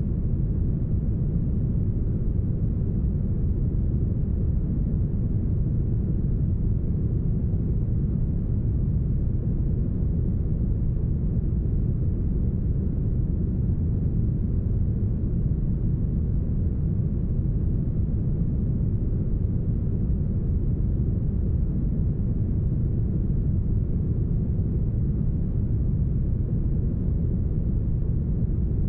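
Steady, deep brown noise, smoothed so that the highs are cut away: an even low rush that never changes.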